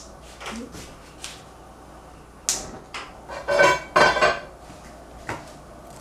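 Kitchen clatter: a few light clicks and a sharp knock, then about a second of metal pots and utensils clattering and ringing, about three and a half seconds in.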